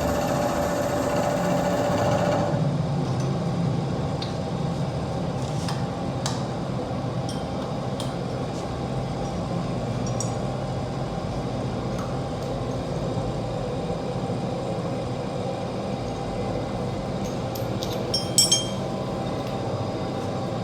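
A milling machine's motor runs with a steady whine, then cuts out about two seconds in. A low workshop hum continues, broken by scattered light metal clicks and a quick run of sharp metallic clinks near the end.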